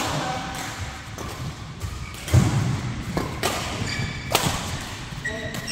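Badminton play: sharp racket strikes on the shuttlecock about once a second, a heavy low thud about two and a half seconds in that is the loudest sound, and short high shoe squeaks on the court floor near the end.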